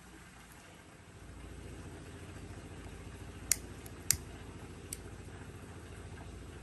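A motor's low, steady hum sets in about a second in, with three sharp clicks near the middle.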